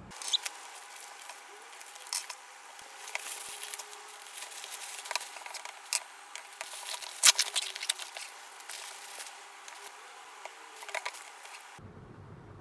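Handling noise of sandals being picked up, moved and set down on a wooden desk: scattered light taps and rustles, the loudest knock about seven seconds in, over a faint steady hum. The sounds stop a little before the end.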